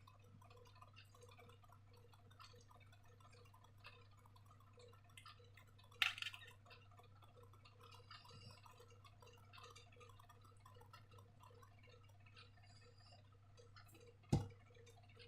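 Near silence with faint scattered small ticks and clicks, broken by a brief louder rustle about six seconds in and a single sharp knock near the end.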